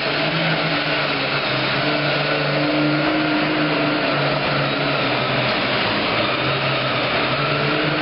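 Turbocharged diesel engine of a Super Farm class pulling tractor running flat out under load during a pull, a loud, steady roar with a held pitch.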